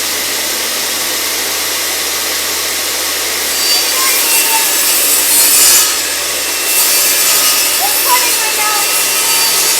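Craftsman table saw running steadily, its blade cutting through plywood: louder from about three and a half seconds in, with a short drop around six seconds before the cut goes on.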